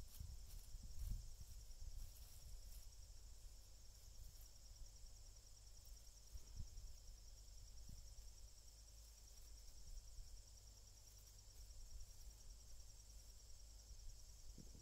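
Near silence with faint, steady, high insect chirring, and a few low rumbles in the first couple of seconds.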